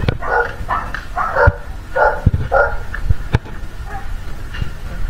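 A dog barking repeatedly, about two barks a second for the first three seconds, then fainter. A few sharp clicks fall between the barks.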